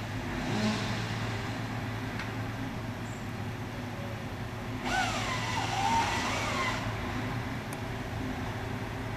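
Crane truck's engine running steadily. About five seconds in, the hydraulic saw on the crane's grapple head runs for about two seconds: a whine that shoots up in pitch, dips, and rises again before it stops.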